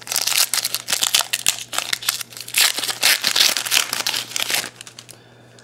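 The foil wrapper of a 2011 Donruss Elite football card pack being torn open and crumpled by hand, a dense crinkling that stops near the end.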